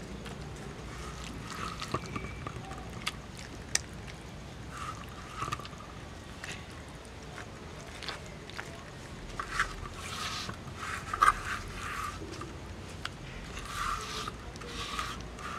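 Hands mixing raw chicken pieces with wet spice paste in a steel bowl and scraping paste off a clay plate: wet squelching and scraping with occasional sharp clicks.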